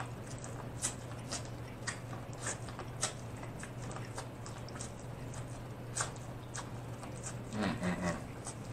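Close-miked eating of corn on the cob: irregular crunchy bites and mouth clicks, about one every half second at first, then sparser, with a quick cluster near the end. A steady low hum runs underneath.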